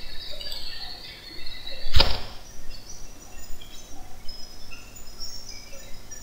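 Birds chirping in the background, with a single sharp click about two seconds in.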